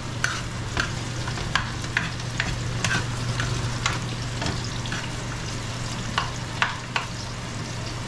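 Chopped onion frying in oil in a non-stick pan, sizzling steadily, while a plastic spoon stirs it, scraping and tapping against the pan at irregular intervals of about half a second.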